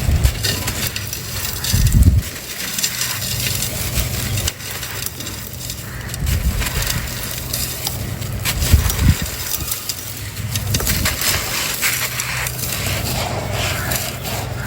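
A dry, hardened crumbly texture being crushed and crumbled: a dense run of gritty crunching and crackling, with heavier thuds about 2 and 9 seconds in.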